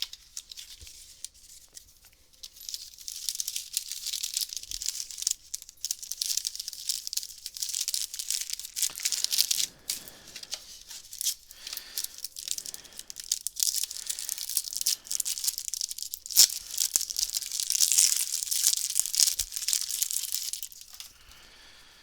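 A trading-card booster pack's wrapper being torn open and crinkled by hand: irregular tearing and crackling rustle that starts a couple of seconds in and dies away near the end.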